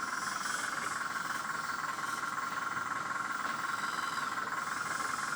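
A 1/14-scale radio-controlled hydraulic excavator (Jack's E20) running with its hydraulic pump on: a steady, even whine over a hiss, with no change in pitch.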